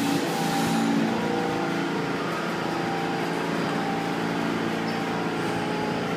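R46 subway train coming to a stop at the platform, with a hiss in the first second. It then stands with a steady mechanical hum from the car's equipment.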